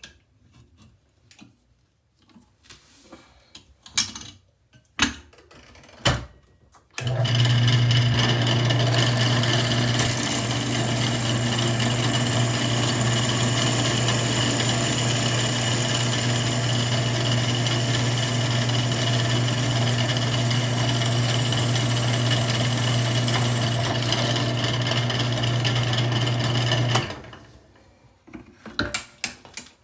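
A few knocks, then a drill press starts about seven seconds in and runs steadily for about twenty seconds with a strong low hum before winding down. Its 1/4 inch bit is drilling the heads off stripped steel scope base screws in a shotgun receiver.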